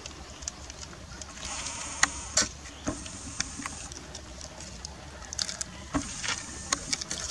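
Fork clinking and scraping against a metal camping pot as instant noodles are stirred, with a plastic seasoning sachet crinkling as it is squeezed out. Irregular sharp taps, with two stretches of rustly crinkling.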